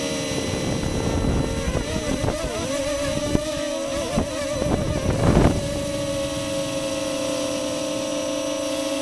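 Walkera QR Ladybird micro quadcopter's motors and propellers whining steadily, heard through the keychain camera's microphone on board. From about half a second in to about five and a half seconds the whine wavers up and down in pitch as the motor speeds change, with low rumbling buffets and a few thumps, the loudest just after five seconds, then it settles back to a steady whine.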